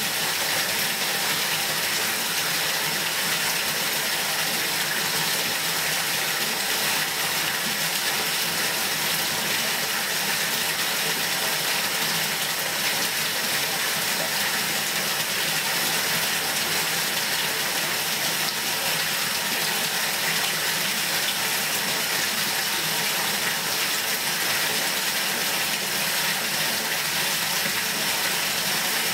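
Bathtub filling from its faucet: water running steadily from the tap into the tub.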